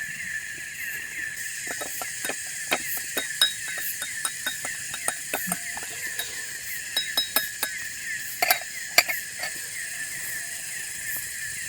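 Steady shrill buzz of insects in the forest, with quick repeated chirps, while a run of sharp clinks and taps starts about a second and a half in and is busiest around eight to nine seconds.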